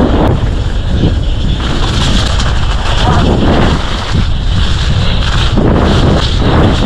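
Heavy wind buffeting the microphone: a constant low rumble with irregular gusty swells.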